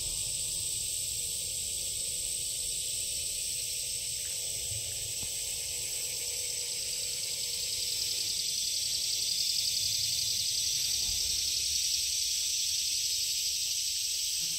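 Steady high-pitched chorus of summer insects buzzing, swelling a little louder a little past the middle.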